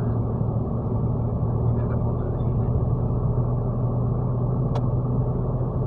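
Steady low drone of a car's engine and road noise heard from inside the cabin while driving, with one short click a little before the end.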